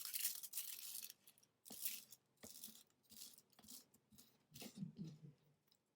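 Faint rubbing of glue being spread across cardboard, dense for about the first second, then scattered scratchy handling noises and a few light taps.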